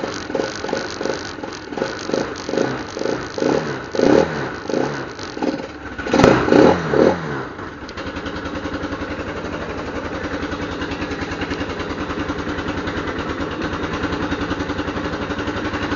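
ATV engine running cold and uneven, surging about twice a second, with a brief rev about six seconds in, then settling into a steady idle. The owner calls it a little cold-blooded: not yet fully warmed up after sitting through the winter.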